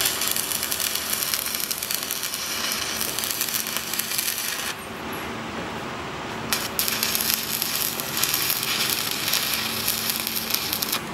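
Electric arc welding: the arc crackles and sizzles steadily for about four and a half seconds, stops briefly just before the middle, then strikes again and crackles on to the end, over a faint steady hum.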